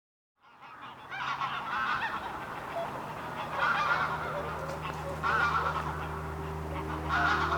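Domestic ducks calling in repeated loud bursts of honking quacks.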